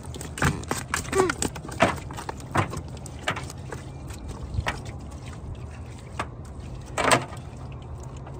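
Fishing net being hauled wet into an aluminium jon boat: irregular splashes and knocks, the loudest about seven seconds in, over a steady low hum.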